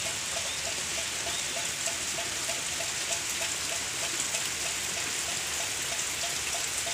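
Heavy rain falling steadily, an even hiss, with a quick regular plinking of water drips about three times a second.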